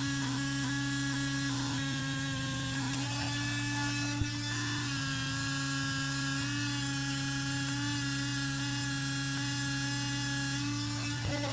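Dremel rotary tool running steadily on the rusty steel pliers, a high motor whine whose pitch shifts slightly now and then.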